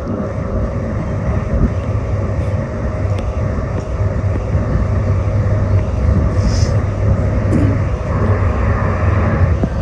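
CTrain light-rail car running on the tracks, heard from inside the car: a steady low rumble with a constant hum, getting slightly louder as it goes.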